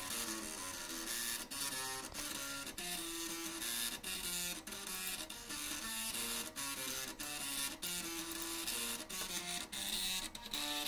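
Two 3.5-inch floppy drives' head stepper motors, driven by an Arduino, buzzing out a fast thrash-metal riff as a quick run of stepped pitched notes.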